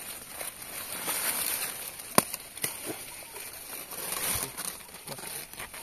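Leaves and vines rustling as a squash is pulled off the plant by hand, with a sharp snap about two seconds in and a smaller one half a second later.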